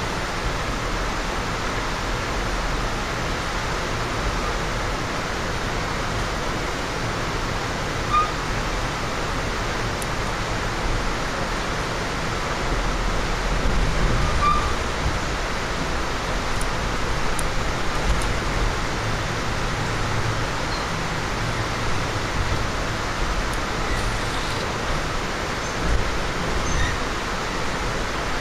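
Steady rumble and hiss inside a moving Amtrak Superliner passenger car, with a couple of brief high squeaks about eight and fourteen seconds in.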